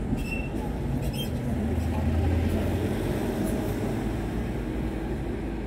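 Cars driving past on a street, heard from inside a car: a steady low engine and tyre rumble that swells about two seconds in as one goes by.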